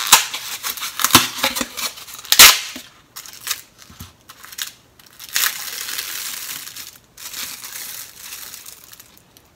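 A foam natto container being opened by hand: its lid snaps and creaks with several sharp cracks, the loudest about two and a half seconds in. After that, the thin plastic film over the beans is peeled off and crinkles for a few seconds at a time.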